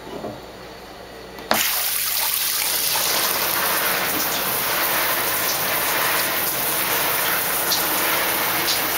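Handheld shower turned on about a second and a half in, its spray then running steadily with an even hiss of water.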